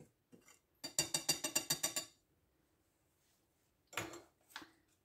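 A metal utensil clinks against a ceramic mixing bowl as dry flour and cocoa are stirred. About ten quick clinks come in a run lasting about a second, then two louder knocks follow near the end.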